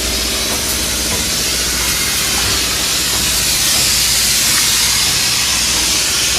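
Polyurea spray gun hissing steadily as the coating is sprayed on, with a steady low hum beneath.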